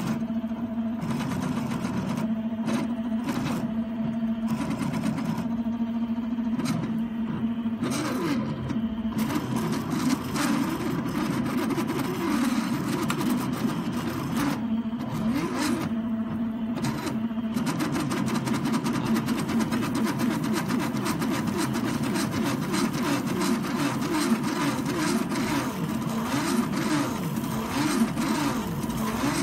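Stepper motors of a PancakeBot delta-arm food printer whirring as the arms pipe batter. For the first eight seconds or so there is a steady hum, then a whine that keeps gliding up and down in pitch as the arms change speed and direction.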